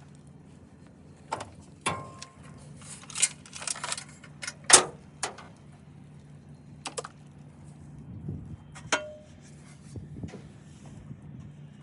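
Scattered metallic clicks and clanks of hand tools and car parts being handled during an engine-bay teardown, the loudest knock about five seconds in, over a steady low hum.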